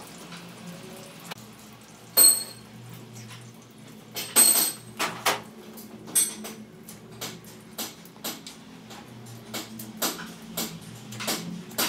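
Hand tools and small metal parts clinking against an Audi transmission's cast aluminium case during assembly: two sharp ringing clanks about two and four seconds in, then a string of lighter clicks and taps, over a steady low hum.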